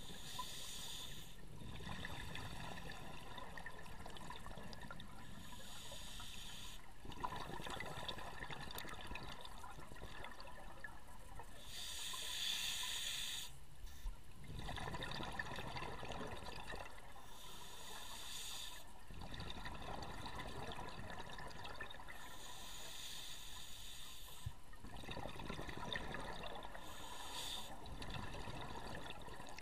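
Scuba regulator breathing underwater: bursts of exhaled bubbles about every five to six seconds, six in all, with quieter hissing between them.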